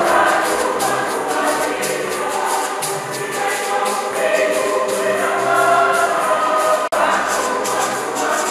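Choir singing a gospel hymn with a steady percussion beat. The sound drops out for an instant about seven seconds in.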